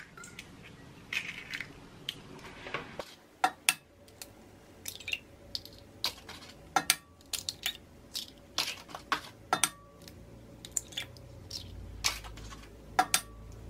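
Eggs being cracked one after another into a stainless steel mixing bowl: a string of short, sharp taps and shell cracks at irregular intervals, with the eggs dropping into the bowl.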